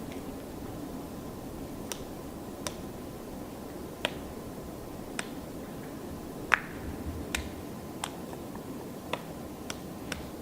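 Black woodpecker pecking and prying bark off a rotten trunk while foraging for overwintering insects and larvae: irregular sharp cracks and taps, about one a second, with one louder crack a little past the middle.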